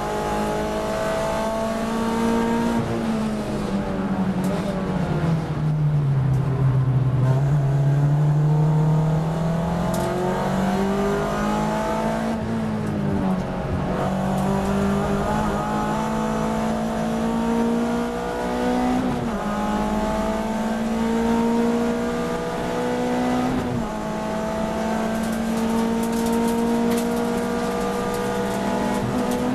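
Volkswagen Lupo race car's engine heard from inside the cabin while racing: its pitch falls as it brakes down for a slow corner about six seconds in, then it climbs through the gears, each rise in pitch cut by a sudden drop at an upshift.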